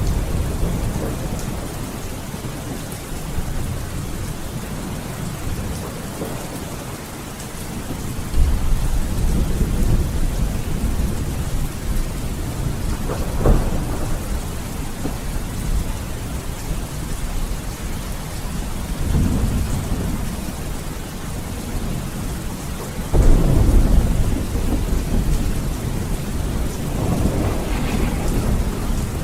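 Steady heavy rain hissing, with low rolls of thunder rumbling up several times; the loudest begin suddenly about a third of the way in and again late on.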